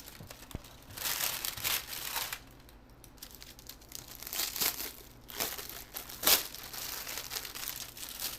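Packaging crinkling and rustling in several bursts as a shoe is pulled out and unwrapped, with one sharp, loud crackle a little past the middle.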